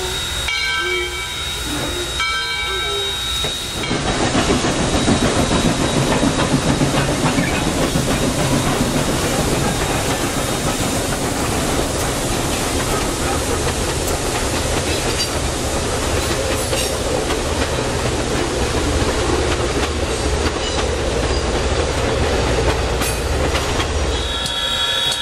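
Steam locomotive 4501's whistle sounds in a few blasts over the first four seconds. Then the train passes close by: a loud, steady rumble and hiss of the engine and its passenger cars rolling over the rails.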